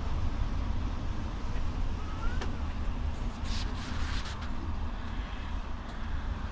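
Rumble of a coach's engine and road noise heard inside the cabin while driving. There is a short rising squeak about two seconds in, and a cluster of clicks and rattles from about three to four and a half seconds in.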